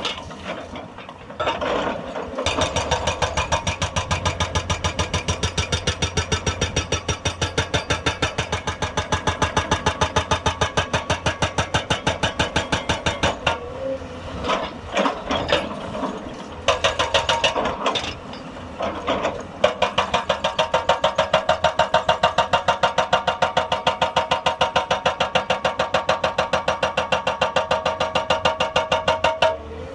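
Hydraulic rock breaker on a Hyundai 290 excavator hammering with a rapid, even train of blows over the running diesel engine. It hammers in a long run, stops and restarts in short bursts near the middle, then hammers steadily again.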